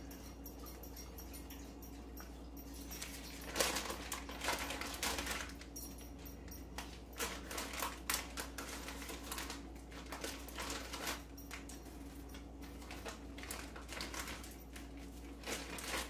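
Crinkling and rustling of a plastic cheese pack and the paper between the slices as pepper jack cheese slices are peeled off, in short irregular bursts starting a few seconds in. A faint steady hum runs underneath.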